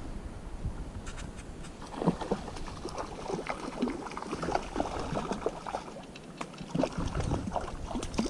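Water splashing and lapping in short, irregular bursts while a hooked rainbow trout is fought and reeled in on a spinning rod.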